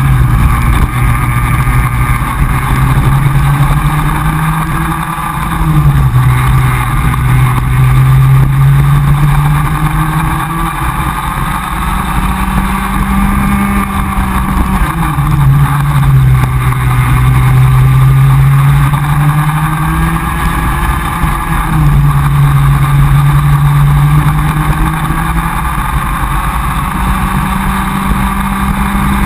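Comer cadet kart's small two-stroke single-cylinder engine, heard onboard at racing speed. Its note climbs steadily as the kart accelerates and drops each time it slows for a corner, several times over.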